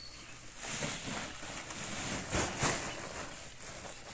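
Woven plastic sack rustling as it is lifted and tipped, with wet cattle manure sliding out onto the ground and a couple of louder thumps around the middle.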